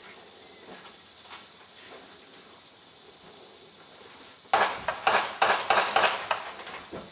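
A rapid string of loud gunshot cracks, several a second, from a gun fired about 100 feet away, breaking in suddenly about two-thirds of the way through. Before them only a steady high insect hum is heard.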